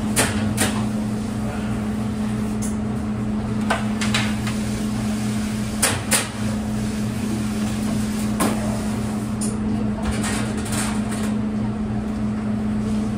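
Steady low machine hum with irregular knocks, clicks and clatter of work in a bakery kitchen.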